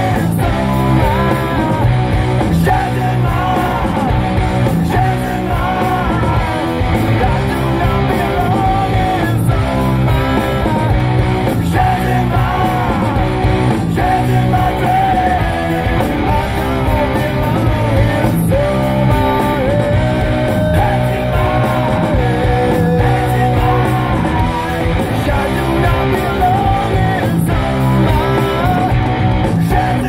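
Rock song playing from a CD: a singing voice over electric guitar and a steady band backing, loud and continuous.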